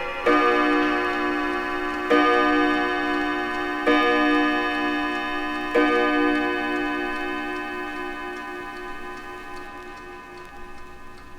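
1950s mantel clock striking: four strokes about two seconds apart, each a bright ringing tone that lingers. After the last stroke the ring fades away slowly, with faint ticking near the end.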